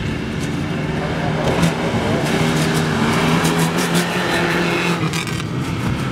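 Engine of a Maruti Gypsy 4x4 off-road race car running hard on a dirt track, its note holding fairly steady with small rises and dips in pitch.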